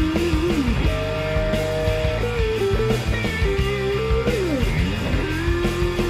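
Background music: a melody with sliding notes over a held bass line and a steady beat.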